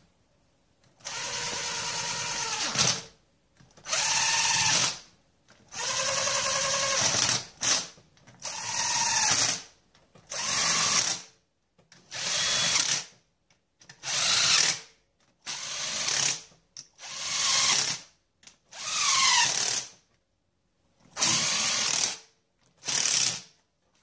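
Handheld power drill driving bolts into a Polaris Sportsman 800 engine in about a dozen short trigger bursts, each a whine that rises and falls as the bolt runs in and seats.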